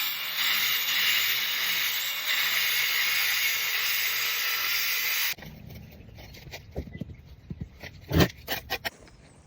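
A steady hiss for about five seconds that cuts off suddenly, followed by scattered knocks and scrapes with one loud thump near the end.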